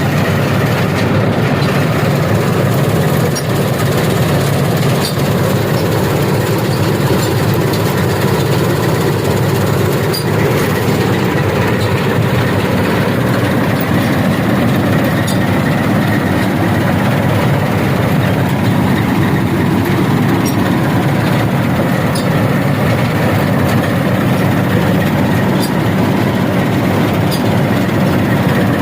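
Dasmesh 3100 mini combine harvester running steadily while harvesting rice: a loud, even machine drone with a constant engine hum.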